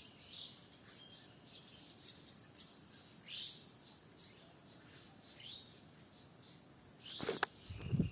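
Wild birds giving short calls every couple of seconds over a steady, high-pitched insect drone. Near the end, loud rustles and knocks, like footsteps or handling close to the recorder.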